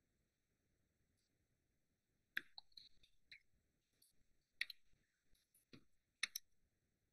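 Computer keyboard typing: a handful of quiet, sharp keystroke clicks in small irregular clusters, starting about two seconds in.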